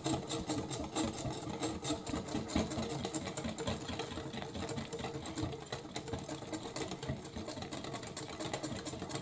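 Electric hand mixer running steadily, its beaters whisking a thin chocolate mixture of milk, sugar, cocoa and oil in a bowl.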